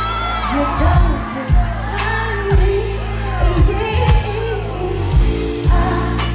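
Live R&B band performance: a female lead voice sings a wavering melody with vibrato over electric guitar, bass and drums, with deep kick-drum beats roughly once a second.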